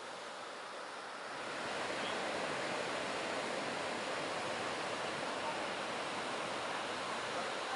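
Steady rushing noise of ocean surf breaking at a beach, growing louder about a second and a half in and then holding steady.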